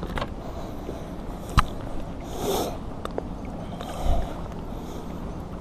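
Water splashing and handling noises as a large pike is held by the gill alongside a float tube, with a sharp click about a second and a half in and a couple of short rushes of splashing after it.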